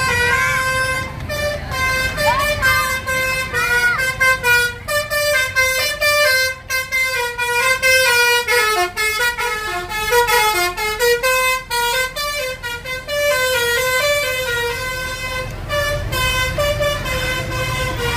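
A bus's telolet basuri multi-tone horn playing a melody, note after note, over a low rumble.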